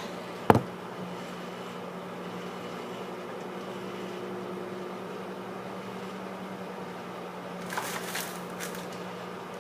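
Microwave oven running with a steady low hum, heating marshmallow Peeps. A single sharp click about half a second in.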